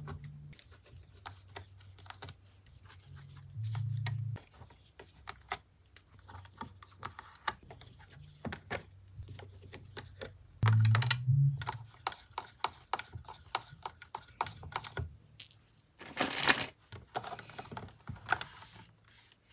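Screwdriver and small metal screws clicking and tapping as a guitar pickguard's screws are backed out and set down, in a quick irregular patter. Two short rustles come near the end.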